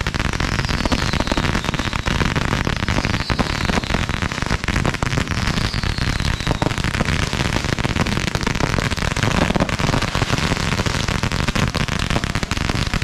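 Many consumer fireworks going off at once: a dense, continuous crackle of firecrackers, fountains and aerial bursts, with two faint falling whistles in the first several seconds.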